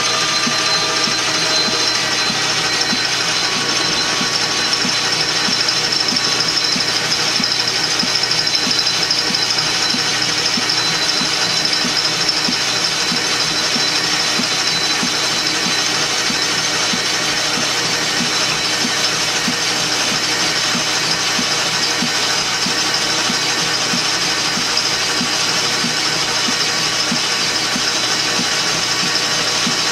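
Metal lathe running steadily while a tool takes a turning cut along a tube. Under the steady machine noise and a high whine there is a faint, fast, even ticking.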